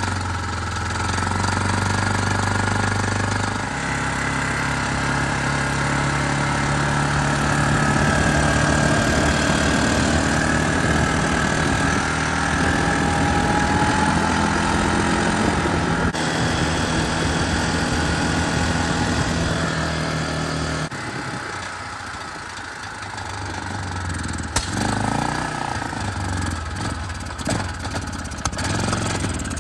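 2005 Arctic Cat 400 automatic ATV's single-cylinder engine running under way with its repaired CVT. The engine pitch steps up about four seconds in, holds steady, then drops lower and more uneven about two-thirds of the way through.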